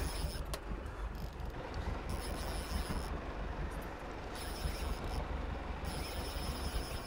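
A boat's engine running steadily, with wind and water noise over it.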